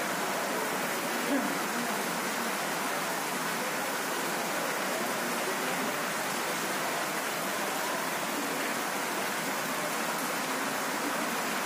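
Steady hiss of heavy rain, with faint voices underneath.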